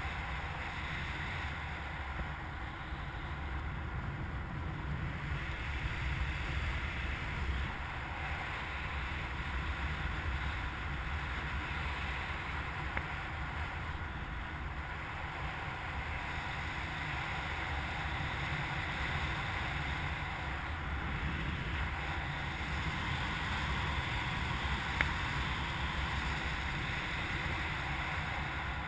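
Steady rush of wind buffeting the microphone of a camera mounted on a hang glider in flight, strongest in the bass. One brief tick near the end.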